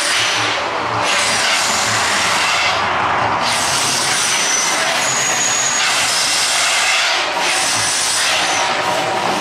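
Gas flame jets of an artificial volcano show going off in a series of loud whooshing bursts, each a second or two long, with short dips between them.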